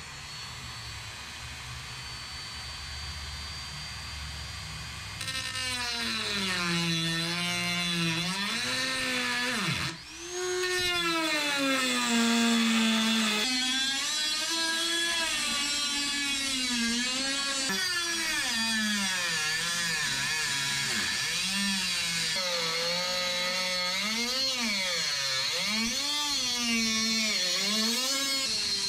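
Dremel rotary tool with a cutoff wheel cutting aluminium. It starts with a steady high whine, then its pitch rises and falls as the wheel bites into the metal and eases off. About ten seconds in it briefly stops and spins back up before cutting on.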